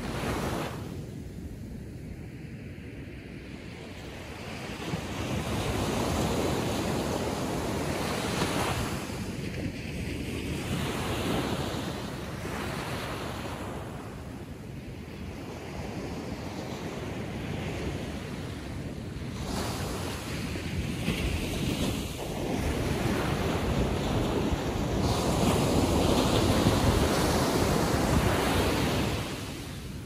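Atlantic Ocean waves breaking and washing up the beach, the sound rising and falling as several waves come in, the loudest near the end.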